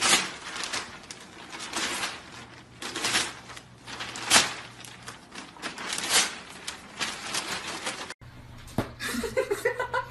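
Newspaper crackling, rustling and tearing as a golden retriever pulls and rips pages out of the paper with its mouth, in a run of sharp crinkles. Near the end a small dog gives a brief high whine.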